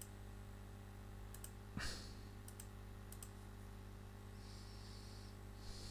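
Computer mouse clicking: a few single clicks and quick double clicks over a steady low electrical hum. About two seconds in comes a soft thump with a short rush of noise, and near the end a brief hiss.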